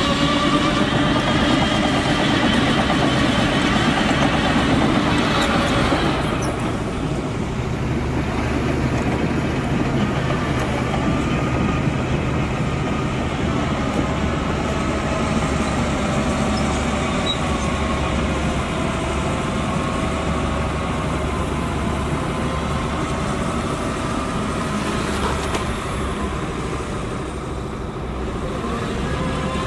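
Heavy diesel earthmoving machinery running under load, most likely a bulldozer working dirt, with the engine pitch wavering. The higher part of the sound drops away about six seconds in, leaving a lower, steady engine sound.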